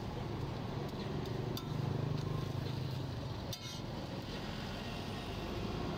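A metal spatula clinking and scraping on a flat roti griddle, with one sharper clink about three and a half seconds in, over a steady low rumble that swells a little in the middle.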